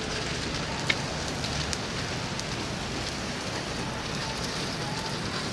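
Steady hiss of outdoor street ambience, with faint scattered ticks and one sharp click about a second in.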